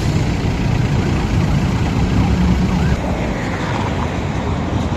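Road traffic at a busy crossroads: car and truck engines running with a steady low rumble.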